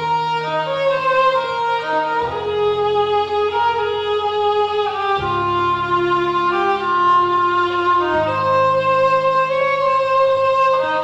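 Background music of long held notes over a sustained bass, the chords changing about every three seconds.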